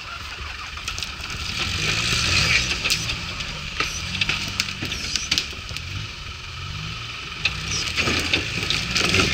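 Land Rover engine running at low revs, its pitch stepping up and down, as the vehicle crawls over rough ground into trees, with many sharp cracks and snaps of twigs and brush against the body.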